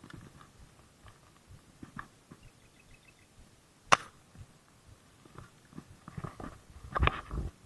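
Scattered light knocks and rustling, with one sharp click about four seconds in and a cluster of dull thumps near the end.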